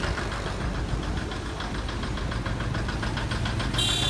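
A diesel truck engine idling with an even, rapid clatter. Near the end a brief high-pitched tone sounds.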